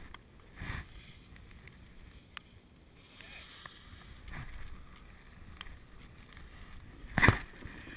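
Wind rushing over an action camera's microphone and a snowboard sliding and scraping over snow, coming in gusts, with one short loud burst near the end.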